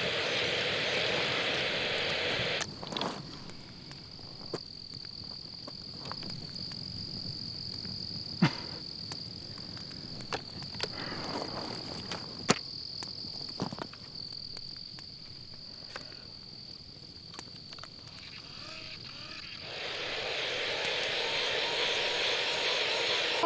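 Crickets chirring steadily on one high pitch, with scattered sharp clicks. A louder hissing wash covers the first couple of seconds and comes back for the last few.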